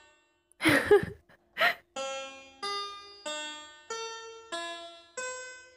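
Background music: a slow melody of single plucked or keyboard notes, one about every 0.6 s, each ringing out and fading. Two short loud noises break in during the first two seconds.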